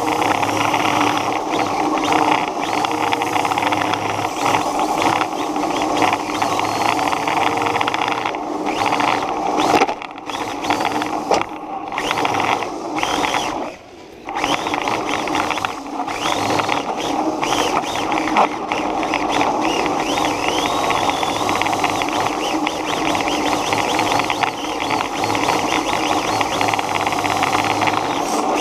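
Radio-controlled car's motor driving under throttle: a steady buzzing whine whose pitch rises and falls with the throttle. It backs off briefly about ten seconds in and drops away near fourteen seconds before picking up again.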